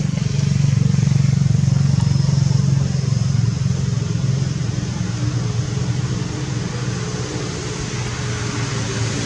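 An engine running steadily, a low even hum that holds without revving.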